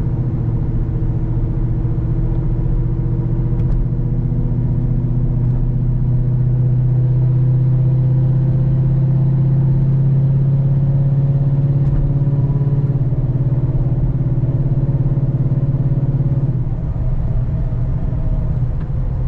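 Ford Mustang Boss 302's 5.0-litre V8 running through aftermarket aluminized-steel side pipes, heard from inside the car with the windows up while driving: a steady, deep exhaust drone that rises slightly in pitch. About three-quarters of the way through, the note drops away.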